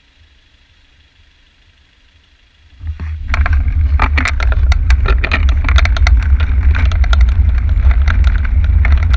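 A bicycle-mounted camera's microphone, quiet with faint traffic at first, then from about three seconds in heavy wind rumble and rapid rattling clicks as the bike rides along the road.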